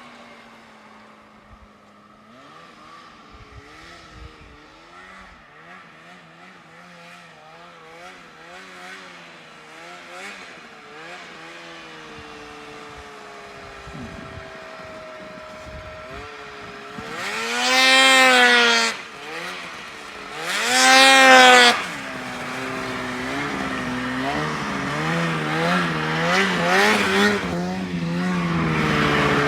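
Yamaha Phazer snowmobile engine revving up and down as the sled is ridden, fainter at first. It grows loud twice in quick succession a little past halfway as the sled comes close, then runs steadily louder near the end.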